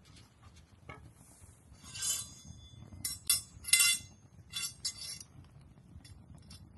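Wood campfire crackling, with a run of sharp snaps and pops about two seconds in and again between three and five seconds, the loudest near the middle, over a low steady rumble of the fire.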